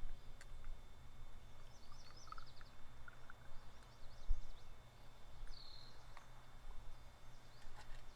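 Outdoor ambience: a steady low rumble with birds chirping faintly in short bursts, plus a few light clicks.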